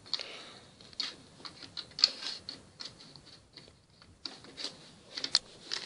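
Plastic LEGO bricks clicking and tapping as hands fit them onto a half-built model, a scatter of small, irregular sharp clicks.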